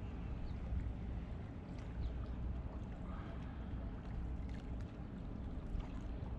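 Steady low rumble of wind on the microphone and water washing against jetty rocks, with a few faint clicks.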